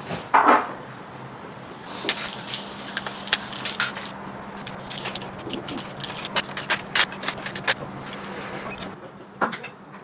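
Hand tools and metal parts of a classic Mini engine clinking and clattering as it is stripped down: many quick, sharp metallic clicks, over a steady low hum.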